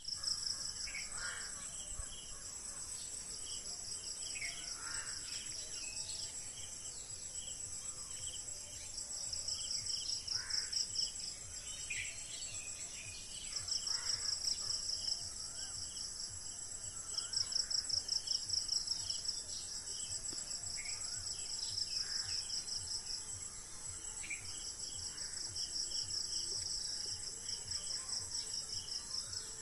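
A steady, high-pitched, pulsing insect chorus of crickets or cicadas, swelling louder in stretches every few seconds, with several birds giving short chirps and calls over it.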